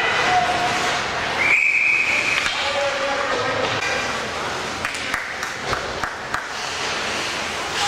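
A referee's whistle is blown once, a steady shrill blast of about one second, a second and a half in. Echoing hall noise from the game continues around it.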